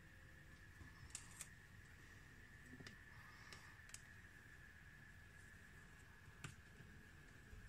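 Near silence: a few faint ticks and light rustles of thin plastic protective film and a small action camera being handled on a table, over a faint steady high-pitched hum.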